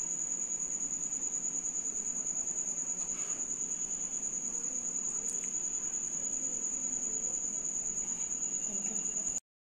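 A cricket chirping in a continuous high-pitched trill, pulsing fast and evenly; it cuts off suddenly near the end.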